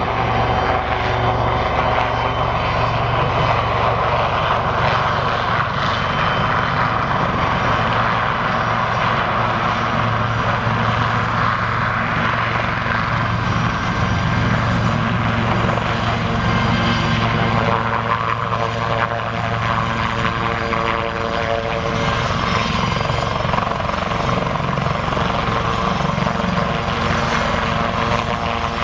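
Westland Lynx twin-engine military helicopter flying low, its main rotor and turbines running steadily, with a turbine whine that comes forward in the second half.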